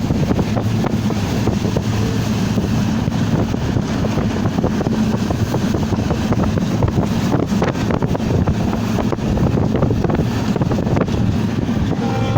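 Banalata Express train running at speed, a steady heavy rumble with wind buffeting the microphone.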